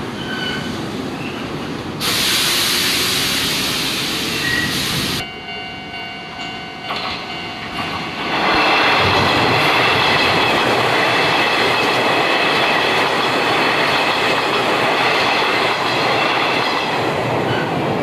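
Hanshin Railway red-and-cream electric train running past at close range: wheels on rail and motor noise. A loud stretch starts and cuts off abruptly early on. After a quieter spell with a steady whine, the running noise swells about eight seconds in and stays loud almost to the end.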